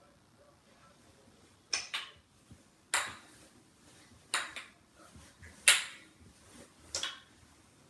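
Wooden kendama being played: about seven sharp clacks as the ball lands in the cups, some of them in quick pairs, each ringing briefly.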